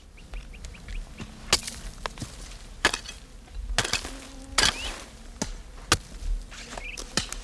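A hand tool striking, with about seven sharp blows at uneven intervals.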